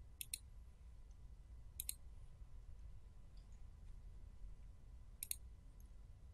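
Computer mouse clicking: three quick double clicks, each a press and release, a couple of seconds or more apart.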